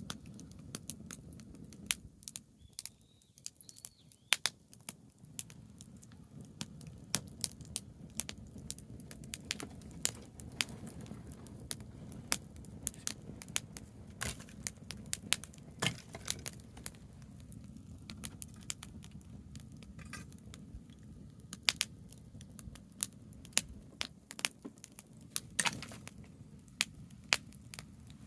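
Branches burning in a bonfire, crackling with many sharp, irregular pops over a low steady rumble.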